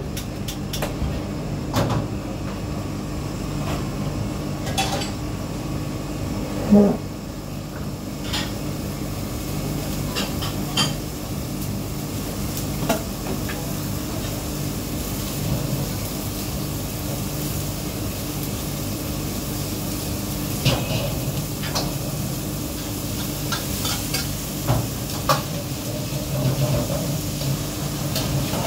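Restaurant kitchen clatter: plates, pots and cutlery clinking and knocking now and then over a steady hum, with the loudest clatter about seven seconds in.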